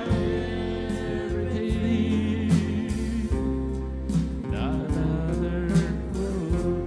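Live church worship band playing a gospel praise song: voices singing over acoustic guitar, bass and a drum kit, with cymbal hits every half-second or so.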